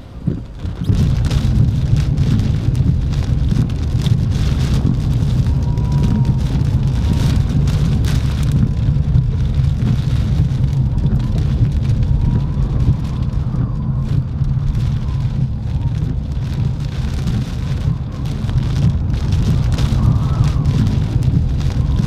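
Heavy hurricane rain beating on a moving car, heard from inside the cabin, over a steady low rumble of wind and tyres on the wet road. It comes in loud about a second in and stays steady.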